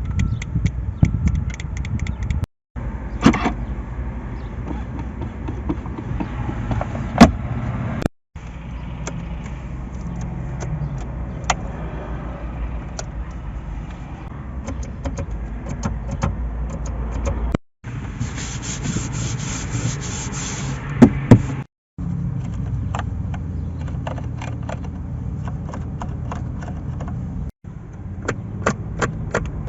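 Ferrari F430 Spider's V8 engine running steadily, in several short segments that cut off abruptly, with scattered sharp clicks and a few loud cracks; the loudest crack comes about seven seconds in.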